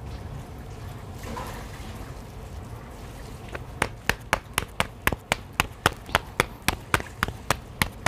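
Paratha dough slapped and patted between the palms, a regular run of sharp slaps about four a second that starts a little over halfway in.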